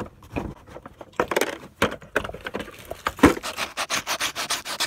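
Hand-sanding of a small wooden piece with sandpaper: a few irregular knocks and scrapes as the wood is handled, one sharper knock, then from about three and a half seconds in quick, even back-and-forth rubbing strokes, about five a second.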